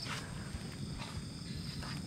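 Quiet night ambience: a faint steady chirring of insects, with two brief rustles of feet on dry bamboo leaf litter, one at the start and one near the end.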